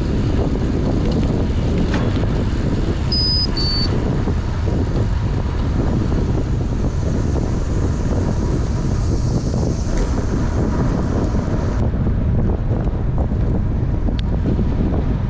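Steady wind buffeting on the microphone of a camera carried on a road bicycle riding at speed. Two short high beeps sound about three seconds in.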